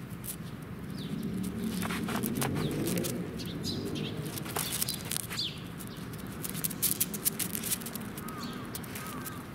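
Outdoor ambience: a low steady rumble with scattered short clicks, a few quick high bird chirps in the middle, and short repeated hooked calls near the end.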